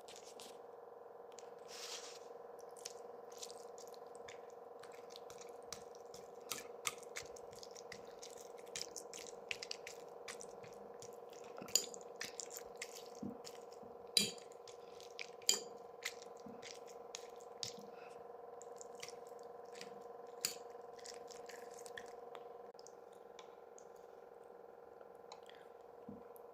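Close-miked eating of sarmale (cabbage rolls) with sour cream: scattered sharp mouth clicks and wet smacks, a few of them louder, over a steady background hum.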